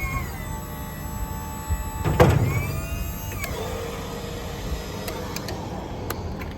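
Truck-mounted service crane running under remote control: its motor whines in several starts and stops, the pitch sliding down and settling as each move gets under way, with a clunk about two seconds in.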